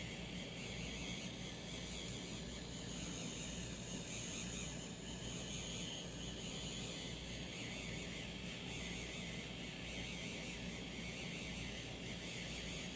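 Faint, steady whir of a 3D printing pen's small filament-feed motor, pushing out melted plastic filament.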